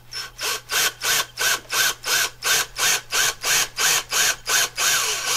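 Power drill driving a screw into the old plug left in a hole in a cast iron drain pipe, run in short trigger pulses about three times a second, each with a brief rise and fall in pitch, stopping near the end.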